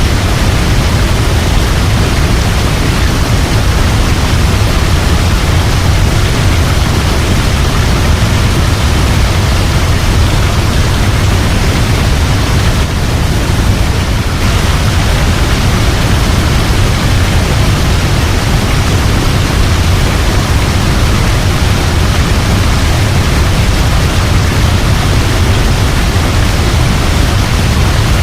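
Waterfall: a loud, steady rush of falling water, heaviest in the deep rumble, with no breaks.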